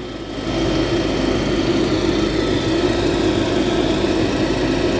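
Steady mechanical drone of running machinery, with a strong low hum. It grows louder about half a second in and then holds steady.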